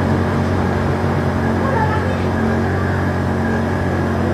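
A steady low mechanical hum at an even level.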